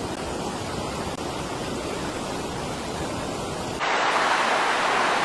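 Steady rush of fast-flowing floodwater. About four seconds in it changes abruptly to a brighter, hissier rush.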